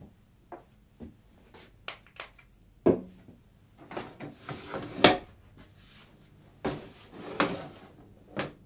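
Pen scratching quick strokes on paper, with a heavier knock and some rubbing against the wooden drawing board. The strokes come in irregular clusters.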